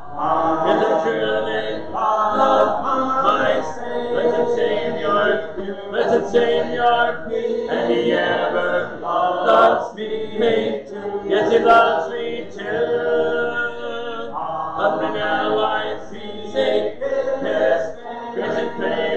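Church congregation singing a hymn a cappella.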